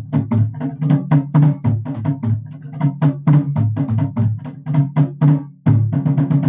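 Nagada drums, Indian kettle drums, beaten in a fast steady rhythm of about five strokes a second, with deep resonant booms. The playing breaks off for a split second near the end and resumes in quicker, denser strokes.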